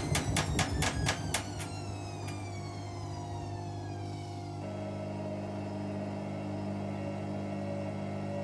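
Hotpoint WM63 front-loading washing machine with a heavily over-sudsed load, its drum motor winding down with a falling whine, which is typical of suds lock stopping a spin. A rapid regular clicking stops about a second and a half in, and a steady hum takes over about four and a half seconds in.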